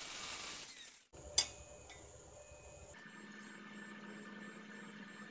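Angle grinder grinding steel, a loud rushing noise that fades out within the first second. Then a single sharp click, and from about three seconds in a faint steady hum.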